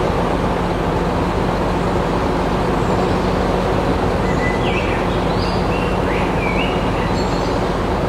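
Steady, continuous machine running noise with a low hum, with a few short high chirping squeaks over it.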